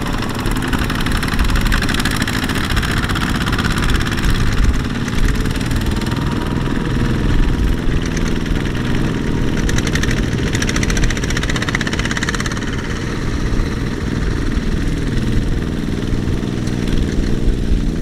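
Kubota walking-tractor (power tiller) single-cylinder diesel engines running under load, the engine note rising and falling as they pull, with two engines heard together in the second half.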